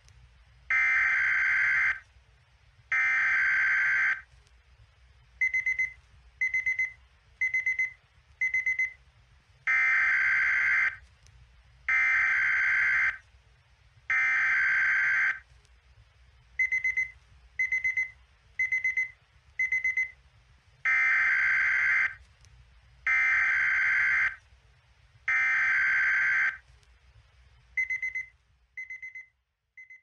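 Emergency alert alarm given for Nunavut: a single high-pitched electronic tone in a repeating cycle of three long tones about two seconds apart followed by four short quick beeps about one a second, the cycle coming round about every eleven seconds. Near the end the short beeps fade out.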